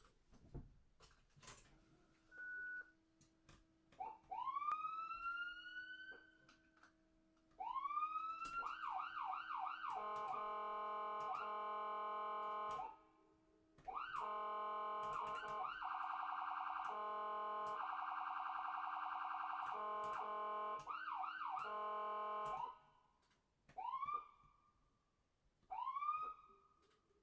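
Ambulance electronic siren cycling through its tones: one slow rising wail about four seconds in, then fast yelp sweeps, a steady held tone, a fast warble and more yelps, and near the end short rising whoop chirps about two seconds apart. A steady low hum sits under the first twenty seconds, and a few sharp clicks sound at the start.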